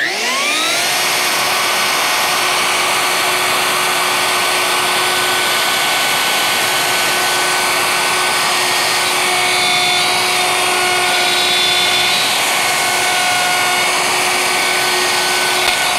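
Plunge router with a 1/4 inch bit in a 5/16 brass bushing guide, spinning up with a rising whine and then running steadily while it clears the bridge cavity in a walnut guitar body through a template, plunged to a 5 mm depth stop. Its tones shift partway through as the cut changes.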